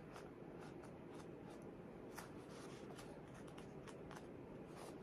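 Faint rustling and soft ticks of paperback book pages being leafed through by hand.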